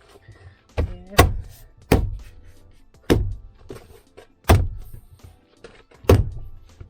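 Heavy thumps, about six, one to one and a half seconds apart, as the Toyota Land Cruiser 120's inner door trim panel is knocked onto its plastic clips, over background music.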